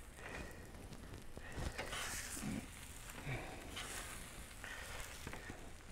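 Faint sizzling from a hot Blackstone flat-top griddle, with a few light knocks of a metal spatula scattered through.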